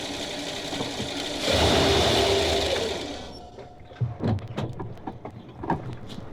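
A machine running with a steady hum. It grows louder about a second and a half in, then dies away at about three seconds, and is followed by a scattering of sharp knocks and clicks.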